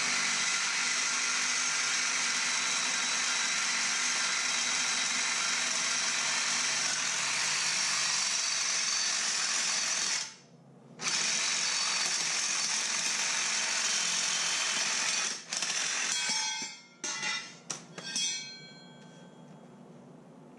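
Power saw cutting unistrut steel strut channel. It runs steadily, cuts out briefly about halfway through, runs again, then gives a few short stop-start bursts before stopping near the end.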